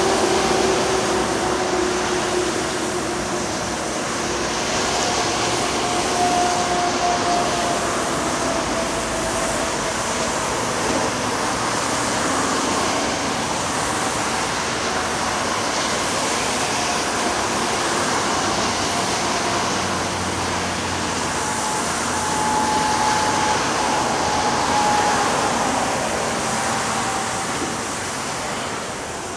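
Steady rush of heavy vehicle and machinery noise, with faint whines drifting slightly in pitch near the start and again past the middle.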